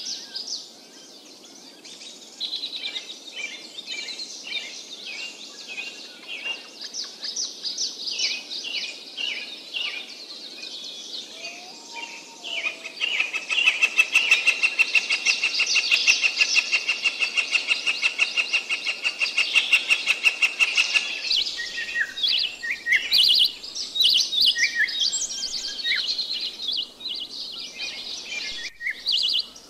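Small songbirds chirping and singing, with a long, fast, dense trill in the middle.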